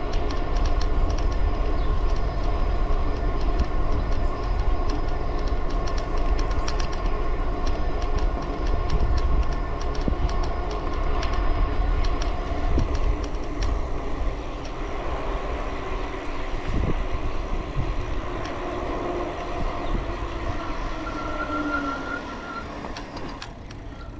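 Electric bike at cruising speed: wind rumble on the handlebar microphone and tyre noise under a steady motor whine. Over the last few seconds the whine falls in pitch and everything quietens as the bike slows and brakes, with a short high squeal near the end.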